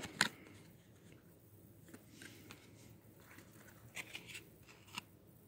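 Faint handling noise of paper trading cards: a couple of sharp clicks at the start, then scattered soft ticks and rustles as cards are moved and set down.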